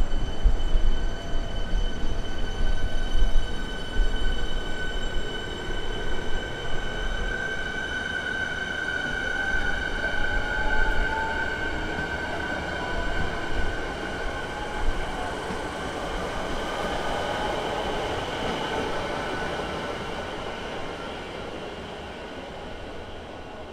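Electric suburban multiple-unit trains, among them a Siemens set, running through the station: a heavy rumble of wheels and bogies over the first few seconds, then a steady high squeal and, around ten seconds in, a rising electric whine from the traction equipment, the whole sound slowly fading towards the end.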